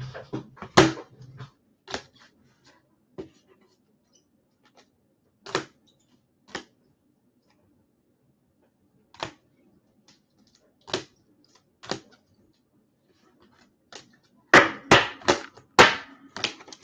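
Sharp taps and clicks a second or more apart, then a quick run of five or six louder ones near the end: trading cards being handled and tapped down on a tabletop.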